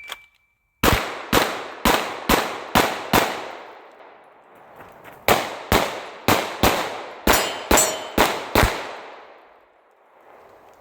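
A shot timer beeps, then a Shadow Systems CR920P 9mm pistol fires rapid strings of shots: about seven quickly, a pause of about two seconds, then about nine more, with steel plates ringing as they are hit in the second string.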